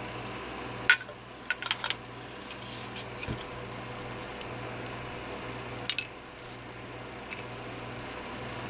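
Scattered sharp clicks and taps of the cordless phone handset's small plastic parts being handled and pried apart during disassembly: one about a second in, a quick cluster soon after, and a pair near six seconds, over a steady low hum.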